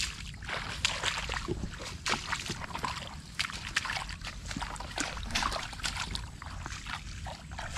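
Footsteps through wet grass and shallow mud: a string of short, irregular rustles and squelches.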